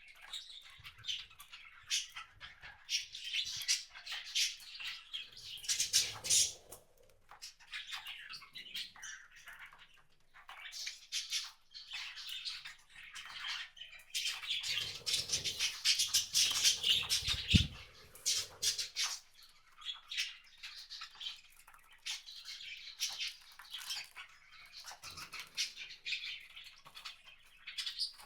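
Wild birds chirping in many quick, short, high notes, busiest around the middle.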